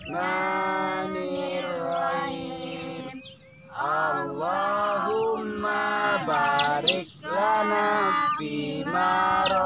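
Several voices chanting the Arabic prayer before eating together, with long drawn-out, sung syllables. A bird chirps a few times about two-thirds of the way through and again near the end.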